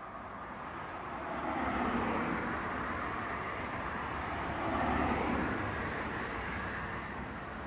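Steady outdoor vehicle rumble that swells about two seconds in and again about five seconds in.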